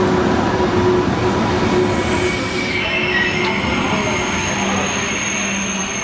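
KTX high-speed train rolling into the station and slowing: a steady, loud rumble of wheels on rail, with thin high squealing tones setting in about halfway.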